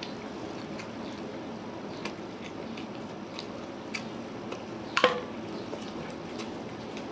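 Close-up eating sounds of someone eating chicken curry and rice by hand: chewing with small wet mouth clicks and the squish of food. A little after five seconds a single sharp clink rings briefly.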